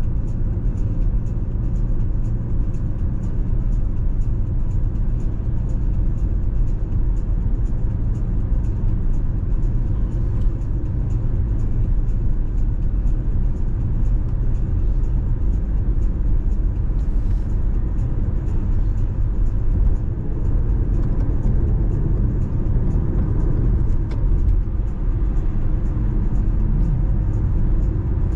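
A car driving along: a steady low rumble of road, tyre and engine noise.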